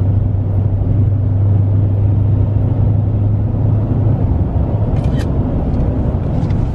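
Car cabin noise while driving: a steady low drone of engine and tyres that eases off about four seconds in, with a few brief clicks about five seconds in.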